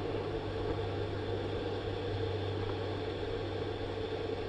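Steady rushing of flowing creek water, with a constant low hum underneath.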